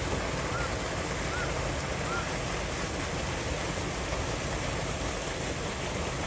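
Steady rushing noise, with three faint short chirps evenly spaced in the first couple of seconds.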